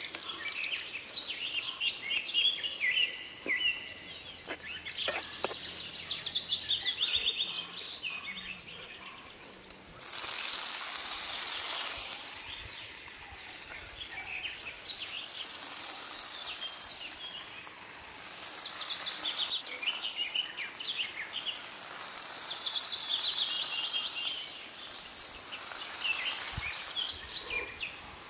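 Outdoor wildlife ambience: high chirping calls, each a quick run of chirps stepping down in pitch, recurring every few seconds over a steady background hiss. About ten seconds in, a louder hiss swells for a couple of seconds.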